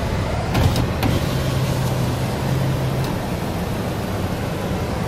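Steady noise inside a car in heavy rain: rain falling on the roof and windshield over the low hum of the running car. A couple of light clicks come about a second in.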